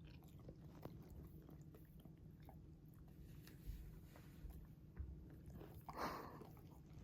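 Faint licking and small wet clicks of a cat grooming a dog's fur, with a short rustle about six seconds in.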